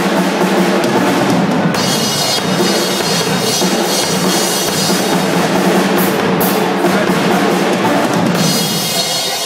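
Drum kit played loud and fast: a dense run of drum hits over the bass drum, with cymbals crashing through most of it.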